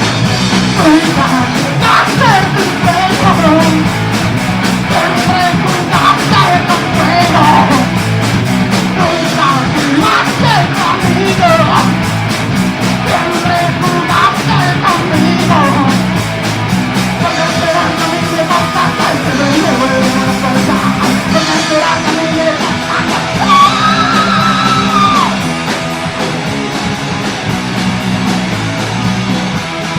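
Punk rock band demo recording: electric guitars over a steady drum beat.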